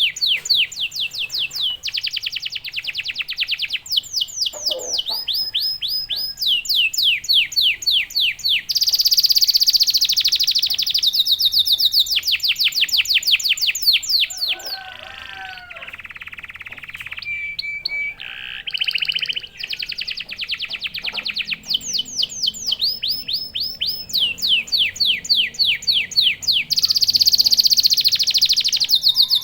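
Domestic canary singing a long, continuous song of fast trills, each a rapid run of repeated downward-sweeping notes. There is a brief softer, lower passage about halfway through, and louder stretches a third of the way in and near the end.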